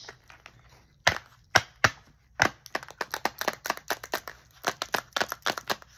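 Acrylic fake nails tapping in a quick, irregular rat-a-tat: a run of sharp clicks, about four or five a second, starting about a second in.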